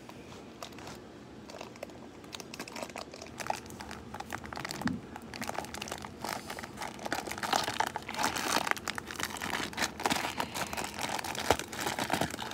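Clear plastic packaging crinkling as it is pulled open by hand around a toy launcher: a dense, irregular run of crackles that grows louder a few seconds in.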